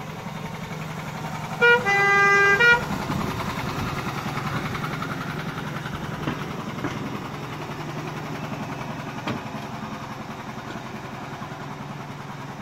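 Miniature railway locomotive's horn sounds once for about a second, over the steady hum of its engine as it runs slowly along the track.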